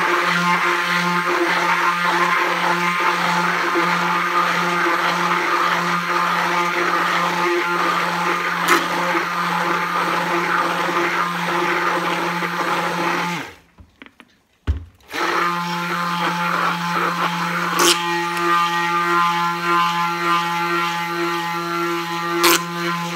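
Hand-held immersion (stick) blender running steadily, emulsifying eggs, mustard and sunflower oil into mayonnaise. The motor cuts out about thirteen and a half seconds in and starts again about a second and a half later.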